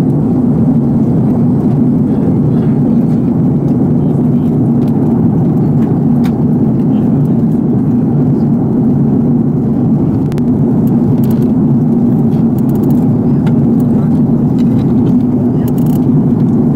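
Steady drone of airliner cabin noise in flight: the engines and airflow heard inside the cabin of an Airbus A330-300, a low, even rumble.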